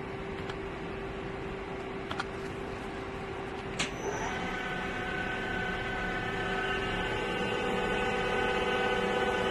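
Doosan Puma GT2100M CNC turning center running with a steady hum and a few light clicks. About four seconds in a sharper click comes, then a steady multi-tone whine sets in and slowly grows louder as the machine's drive starts up.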